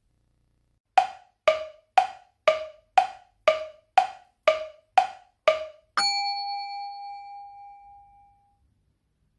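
Countdown timer sound effect: ten short wooden ticks, two a second, then a single ringing bell tone that fades slowly. The tone marks that the 30-second byoyomi per move has run out, a loss on time.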